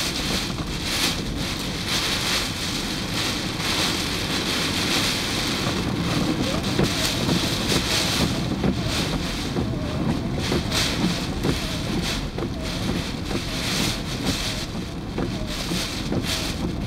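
Typhoon wind gusting hard against the microphone over the hiss of heavy rain, with a constant low rumble.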